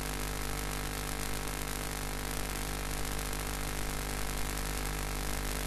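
Steady electrical hum with a layer of hiss, unchanging throughout: the background noise of the recording between spoken sentences.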